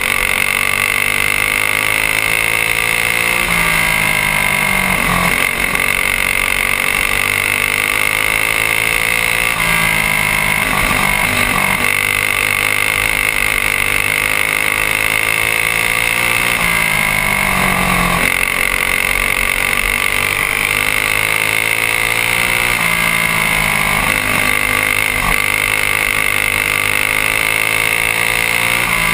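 Single-cylinder Honda GX200-clone go-kart engine racing flat out, its revs climbing steadily along each straight and dropping sharply each time the throttle is lifted for a turn, repeating every five or six seconds, lap after lap around a short oval.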